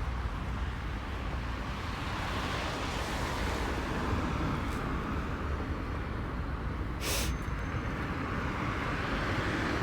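Road traffic: a steady wash of passing vehicles with a low rumble, swelling as a vehicle goes by in the middle, and a short hiss about seven seconds in.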